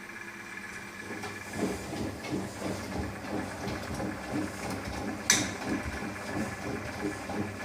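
Izola Apollo 636W washing machine in its wash cycle: a steady hum, then from about a second and a half in a rhythmic churning of the turning drum with its load. One sharp click sounds about five seconds in.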